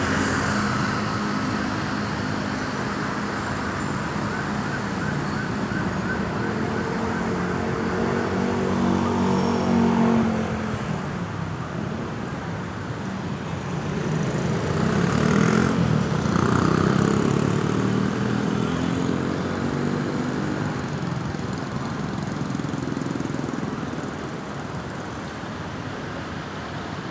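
Road traffic with vehicles passing close by, two louder passes about ten and sixteen seconds in. A faint siren wails in the first few seconds.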